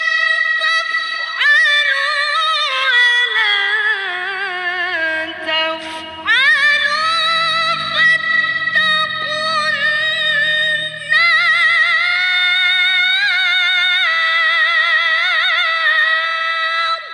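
A young woman reciting the Quran in melodic tilawah style, in a high voice with fast wavering ornaments. A phrase steps down in pitch over the first few seconds, she comes back in high near six seconds, and long high phrases follow until she stops at the end.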